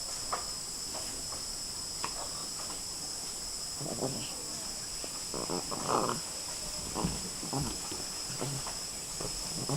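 Steady high-pitched insect chirring, with a few short animal cries about four to eight seconds in.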